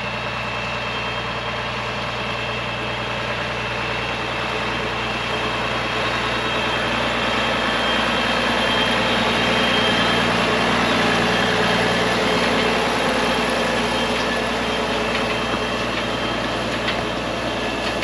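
Farmall 1206 tractor's turbocharged six-cylinder diesel running steadily while pulling an International hay rake. It grows louder as the tractor comes close about halfway through, then fades a little as it moves on.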